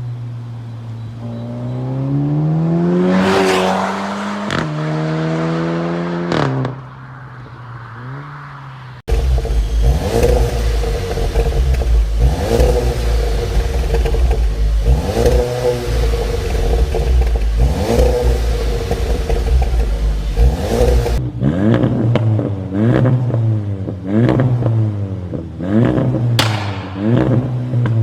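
Seat Leon Cupra ST's 2.0-litre turbocharged four-cylinder revved through aftermarket exhausts, in spliced clips: first one rev up from idle and back down, then about nine seconds in a deeper, louder exhaust note with repeated revs, and from about 21 s a quick run of throttle blips with a few sharp cracks.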